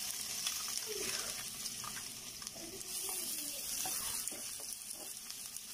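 Chopped onion frying in oil in a skillet: a steady, soft sizzle with a few faint light clicks.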